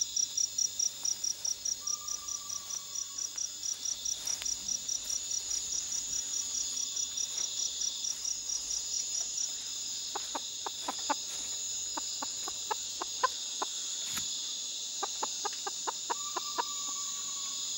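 A night chorus of crickets and other insects, with one cricket chirping in an even pulse about five times a second that stops about halfway through. In the second half a chicken gives a run of short, irregular clucks.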